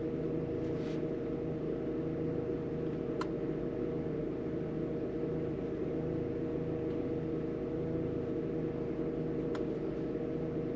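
A steady mechanical hum with a few held tones and a low, gently pulsing undertone, broken by two faint ticks about six seconds apart.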